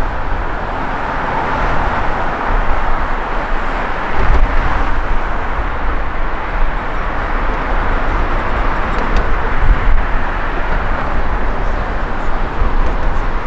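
Steady noise of road traffic, a continuous even roar with no single vehicle standing out.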